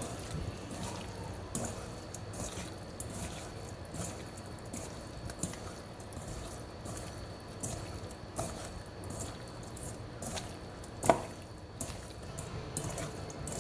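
Raw chicken pieces being mixed with seasoning and soy sauce: irregular wet squelching and light clicks, with one sharper knock about 11 seconds in.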